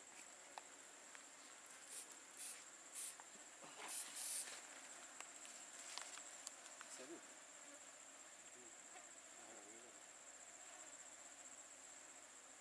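Faint, steady high-pitched insect drone from the forest, with a few short hisses about two to four and a half seconds in.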